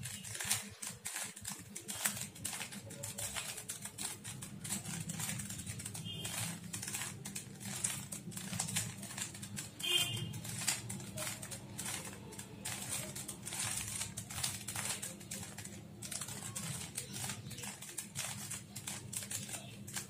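A 3x3 Rubik's cube being twisted over and over, its plastic layers making a fast, uneven run of small clicks and rattles as the cube is scrambled.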